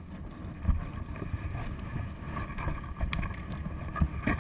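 Wind buffeting the action camera's microphone, with a few dull thumps and clicks from the bike and camera being handled, one near a second in and more near the end.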